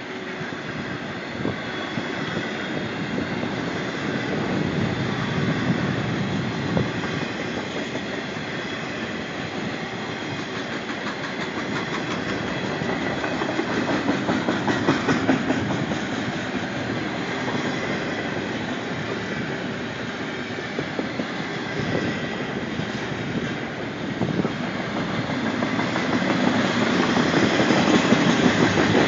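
Freight train cars rolling past close by, wheels clacking steadily over the rail joints, the noise swelling and easing as cars go by.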